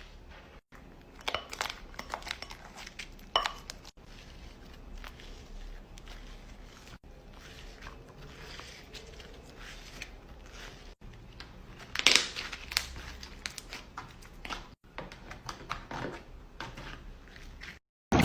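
Slime being worked by hand, giving a run of sharp crackling and crinkling clicks and pops, loudest about twelve seconds in, broken by several abrupt cuts.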